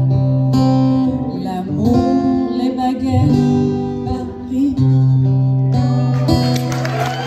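Acoustic guitar strumming the closing chords of a song, ending on a final ringing chord about six seconds in. Applause breaks out near the end.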